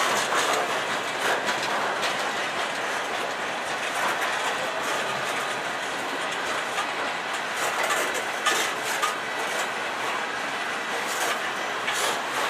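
Freight train cars rolling past, with a steady rumble of steel wheels on rail and irregular clicks and clanks from the wheels and trucks, a few louder clanks near the middle and near the end.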